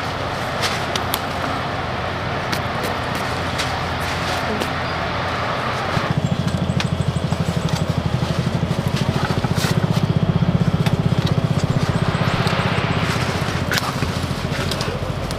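An engine running with a fast, even beat, coming in about six seconds in, swelling and then fading near the end, over a steady hiss with scattered light clicks.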